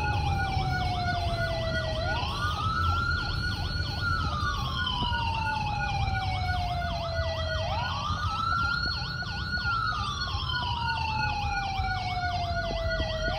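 Two emergency-siren sounds played for a pretend ambulance response, heard over road noise inside a moving car. One is a slow wail that rises quickly, holds, then falls slowly, repeating about every five and a half seconds. The other is a fast warble of about four cycles a second laid over it.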